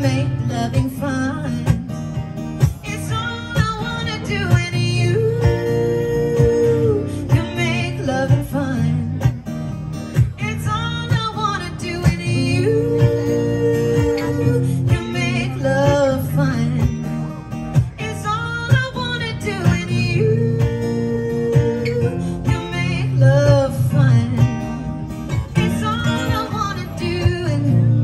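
Live acoustic duo: two acoustic guitars strummed and picked while a woman sings the melody, holding long notes.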